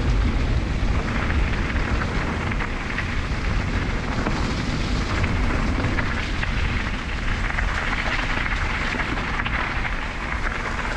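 Fuji Blackhill Evo e-mountain bike riding down a steep, rough trail. Its tyres make a steady rumbling rush over dirt and stones, with many small rattles and clicks from the bike.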